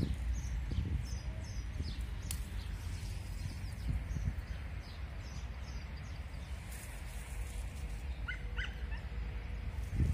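Outdoor rural ambience: a steady low wind rumble on the microphone, small birds chirping, and a few short calls from a fowl about eight seconds in.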